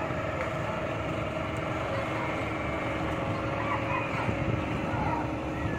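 Engine of a small passenger boat running steadily underway: a constant rumble with a faint steady hum.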